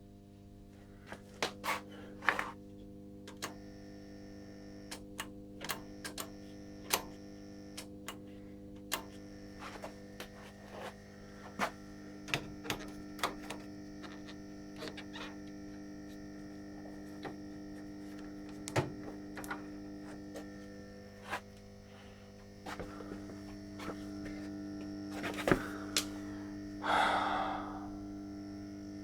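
Vintage Rohde & Schwarz valve oscilloscope running with a steady mains hum and buzz, crackling with irregular sharp clicks and pops, and a short louder rasping burst near the end. It is a lot of noise from a corroded, rotten old unit.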